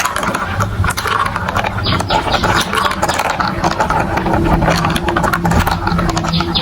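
Marbles rattling and clicking in quick succession along plastic marble-run building-block tracks, over a steady low hum.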